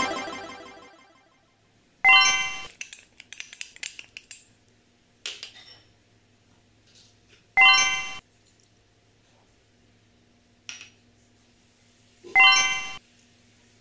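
A short bright chime sound effect rings three times, about five seconds apart. Right after the first comes a quick run of light clinks from the glass bowls. Background music fades out at the very start.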